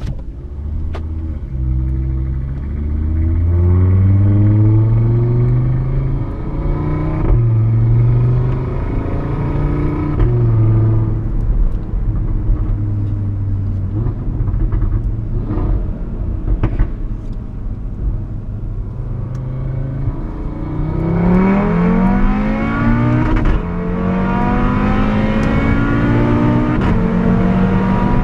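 Tuned Audi RS3's turbocharged five-cylinder engine with a sport exhaust, heard on board, accelerating hard through the gears: the note climbs and drops back at each upshift. It eases to a steadier note midway, then pulls hard again near the end.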